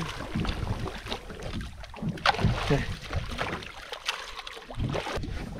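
Water splashing and sloshing at the side of a boat as a lively giant trevally thrashes at the surface while being released, a few short sharp splashes among the lapping, with wind on the microphone.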